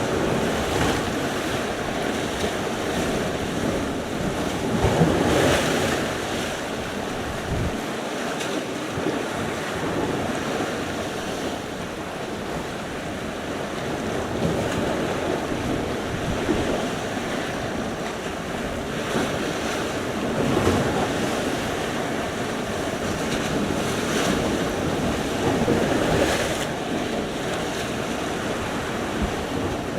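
Sea surf: waves breaking and washing on the shore in repeated swells every few seconds, with wind buffeting the microphone.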